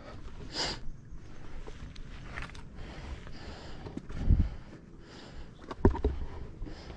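A hiker breathing hard on a steep trail climb, with footsteps; two louder thumps come about four and six seconds in.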